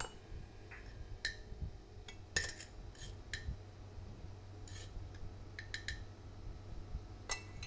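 Teaspoon clinking against a sugar container and teapot as caster sugar is spooned in: a dozen or so light, irregular clicks over a steady low hum.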